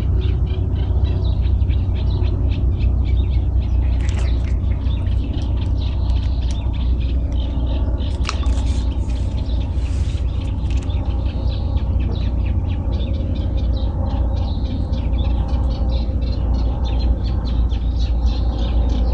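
Small birds chirping rapidly over a loud, steady low rumble.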